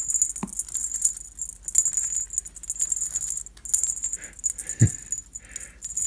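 Segmented snake-shaped cat wand toy rattling in a fast, dense clatter as it is flicked and dragged over shag carpet. A soft low thump comes just before the end.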